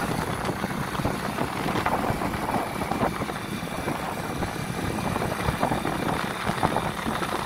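Steady engine, tyre and wind noise of a vehicle driving along a road, heard from on board.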